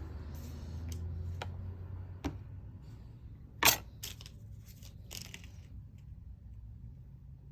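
Small parts and tools being handled on a workbench during a phone repair: a few sharp clicks and taps, the loudest about three and a half seconds in, followed by a short run of lighter ticks, over a low steady hum.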